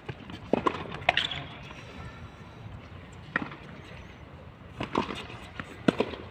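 Tennis rally on a hard court: sharp racket-on-ball strikes and ball bounces, some in quick pairs, coming every second or two, the last pair near the end as the near player hits a forehand.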